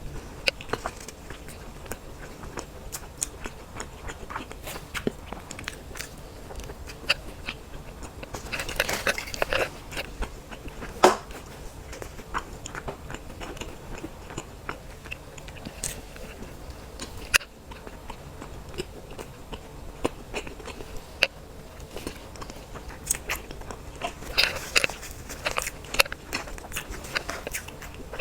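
Close-miked eating of cake: biting and chewing, with wet mouth clicks scattered throughout. Chewing noise grows denser about a third of the way in and again near the end, and one sharper click stands out partway through.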